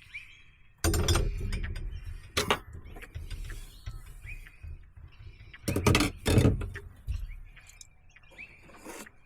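Several knocks and clunks of something being handled, the loudest about a second in and around six seconds in. Short chirps, like a bird's, come faintly in between.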